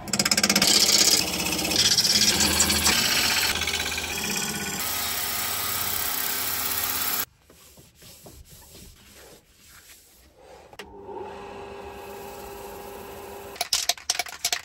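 A turning tool cutting into a square wood blank spinning on a wood lathe: a loud, harsh scraping that stops suddenly after about seven seconds. The lathe then runs with a quiet steady hum while a paper towel rubs on the spinning bowl. Near the end comes a quick run of sharp rattling clicks, like a lacquer spray can being shaken.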